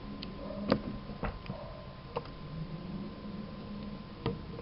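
Punch-down impact tool seating a wire in a network jack. It gives one sharp snap under a second in as its spring mechanism fires and its blade cuts off the surplus wire. Several lighter clicks and taps come before and after.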